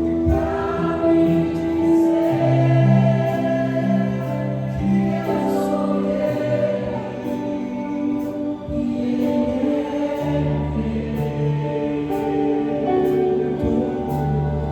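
Slow worship music: sustained keyboard pads and a bass line under held, wordless choir-like voices.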